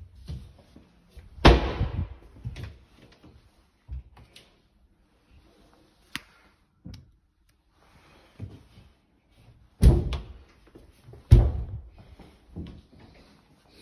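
Irregular loud thumps and knocks with smaller clatter between them. The biggest comes about a second and a half in, and two more come near the end.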